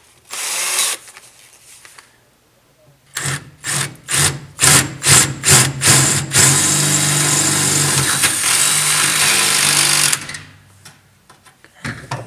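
Hand-held power drill with a 7/32-inch bit cutting into the truck bed's sheet steel at the edge of a mounting hole. It is triggered in short pulses at about three a second, then runs steadily for about four seconds and stops about ten seconds in.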